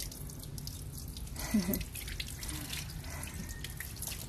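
Water dripping and trickling, with light irregular clicks. A brief low voice-like sound comes about a second and a half in.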